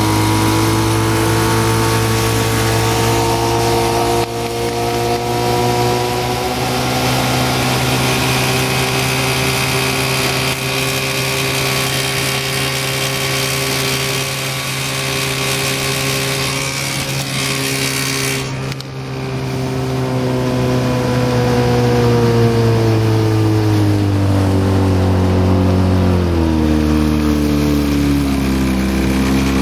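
Evinrude outboard motor running steadily at speed, with a brief break about two-thirds through, then its pitch falling as it throttles down near the end.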